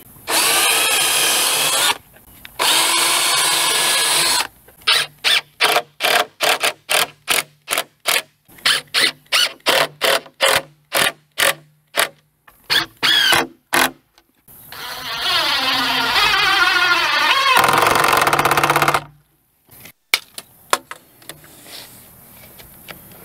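Electric drill pre-drilling holes near the bottom of wooden siding boards so they won't split. It runs twice for about two seconds each, then in a long string of short trigger bursts about two a second, then for about five seconds with its pitch sagging near the end as it bites. A few sharp clicks follow.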